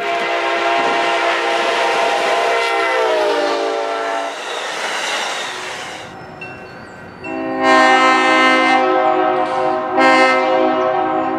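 Diesel locomotive air horn sounding a long chord that drops in pitch as the train passes, followed by the rumble of the passing train. Then a second train's horn sounds two blasts as it approaches a grade crossing.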